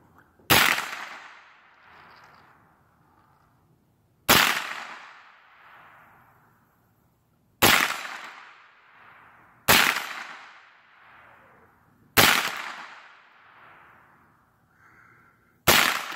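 AR-style rifle fired in slow, deliberate single shots, six in all a few seconds apart, each sharp report followed by a long echo dying away.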